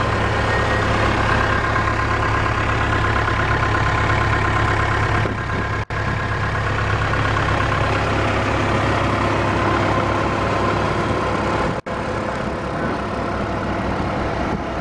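Cat 304E CR mini excavator's diesel engine idling steadily, with a constant low hum. The sound cuts out briefly twice.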